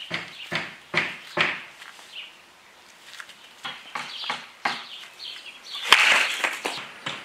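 A baseball bat swung hard at a ball on a batting tee about six seconds in: a sharp crack and a rush of air, the loudest sound here. Before it comes a run of short, evenly spaced sounds, about two or three a second.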